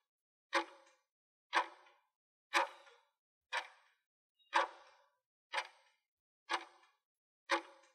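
Quiz countdown-timer sound effect: a clock-like tick once a second, each one short with a brief ringing decay, eight in all.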